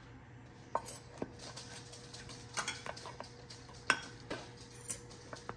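Spatula clicking and scraping against a glass baking dish and ceramic plates as cinnamon rolls are lifted out and served, a handful of light separate clicks spread through.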